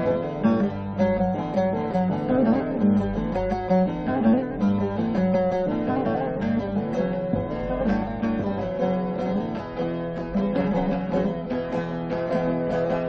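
Bağlama (saz), the Turkish long-necked lute, played solo in an instrumental interlude of a folk song, with rapid plucked notes.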